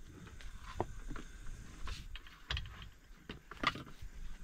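Camp cookware and utensils being handled while rice is prepared: scattered light clicks and taps at irregular intervals.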